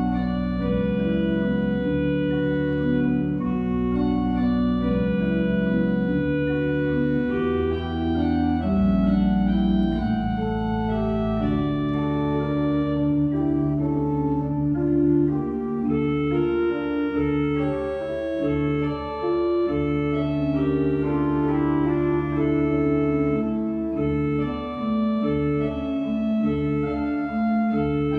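Eisenbarth pipe organ playing: sustained chords over deep held bass notes, the middle voices moving more busily in the second half.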